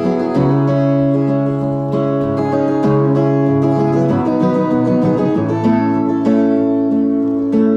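Music: an acoustic guitar strumming chords, which change every second or so, with no singing.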